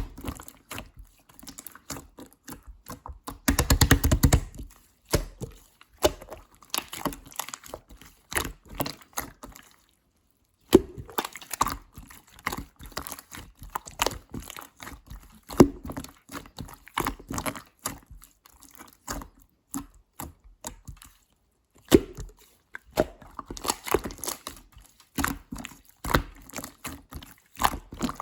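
Slime being squished and pressed by hand: a steady run of small sticky clicks and pops, with a denser, fuller squelch about four seconds in and a brief pause near the middle.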